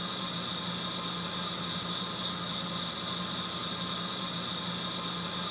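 Steady hiss with a faint whir and a few constant tones, unchanging throughout.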